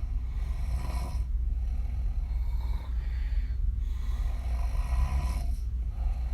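A woman snoring through an open mouth, her lips blowing and fluttering on the breath. There are about three long breaths, each a second or more, over a steady low hum.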